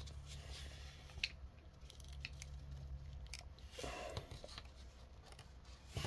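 Small plastic clicks and light handling noises as an action figure's jointed arm and a plastic effect piece on a clear stand are adjusted by hand, with the sharpest click about a second in.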